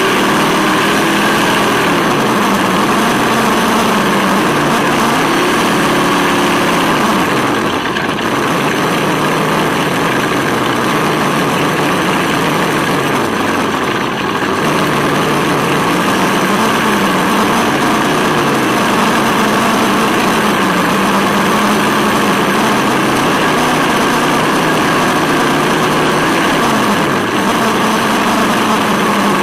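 Tamiya Wild Willy 2 RC buggy driving, with the simulated V8 engine sound of its ESS-One sound unit rising and falling in pitch with the throttle many times. Steady road and wind noise runs underneath, with brief throttle-offs about eight and fourteen seconds in.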